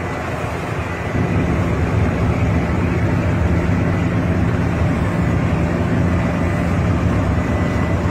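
Steady engine and road rumble of a coach bus heard from inside the cabin, with a constant low hum; it grows louder about a second in.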